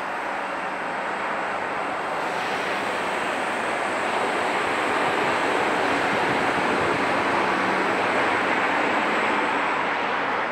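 A tram rolling along its street tracks and passing close below, together with passing road traffic. A steady rushing noise grows louder over the first half and then holds.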